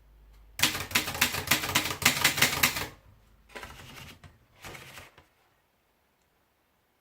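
Torpedo Model 12 manual typewriter being typed on: a quick run of keystrokes lasting about two seconds, then a few fainter mechanical clacks, ending about five seconds in.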